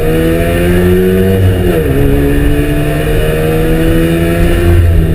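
Trabant 601's two-stroke two-cylinder engine under hard acceleration, heard from inside the car: the revs climb, fall with an upshift about two seconds in, then climb again.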